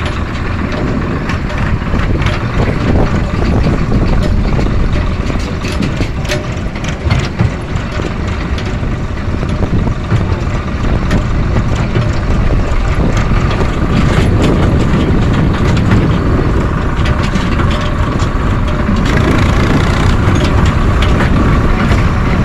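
Steady engine and road rumble of a moving vehicle, heard from on board, with scattered small clicks and rattles, growing a little louder about halfway through.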